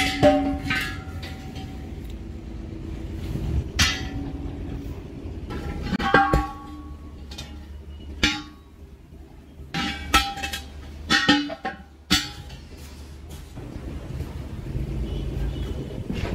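A vehicle engine running steadily, with a series of sharp clanks at irregular moments, several of them ringing briefly like struck metal.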